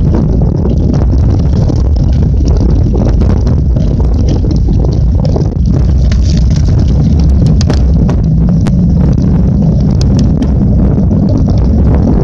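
Mountain bike riding fast downhill on a dirt trail and onto pavement, heard from a handlebar-mounted camera: a loud, dense low rumble of wind on the microphone, tyre and frame rattle. A few sharp clicks and knocks come between about seven and ten seconds in.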